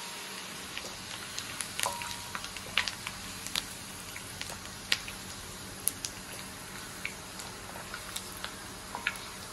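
Shredded young ginger frying in hot oil in a wok: a steady sizzle with scattered sharp pops and crackles.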